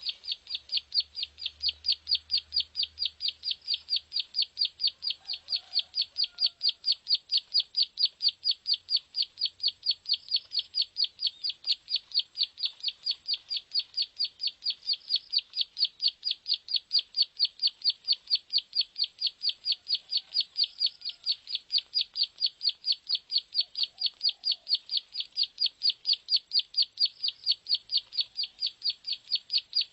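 Plain prinia (prenjak sawah) song played as a lure call: a long, unbroken run of rapid, identical high notes at an even pace.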